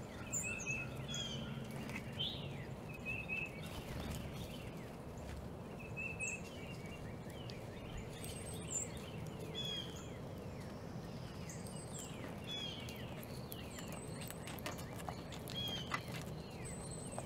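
Small backyard birds chirping and calling in short repeated notes and down-slurred chips over a steady outdoor background hum, with a few faint clicks near the end.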